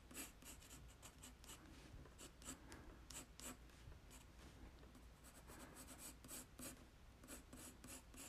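Faint, irregular scratching of an HB graphite pencil on paper, many short strokes in quick succession.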